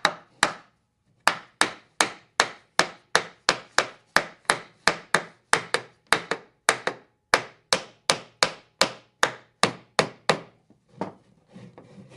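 Repeated sharp blows on wood, evenly paced at about three a second, with a short break about a second in. Near the end the blows stop and give way to quieter rubbing on wood.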